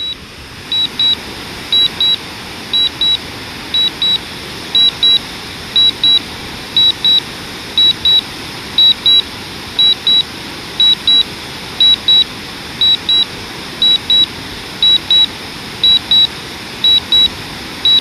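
Drone remote controller beeping in quick pairs, about one pair a second, a high beep that stays at one pitch: the warning sounded while the DJI Mavic Air flies itself back home on low battery. Under it runs a steady rushing hiss.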